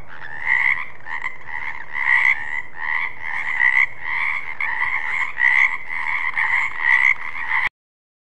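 Frogs croaking in a fast, unbroken run of calls with louder peaks about twice a second. The croaking cuts off abruptly near the end.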